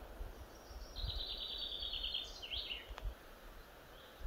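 A small songbird sings one short song about a second in: a quick trill of repeated high notes that ends in a brief falling flourish. Under it there is a low rumble of handling noise, and a single sharp click comes shortly after the song.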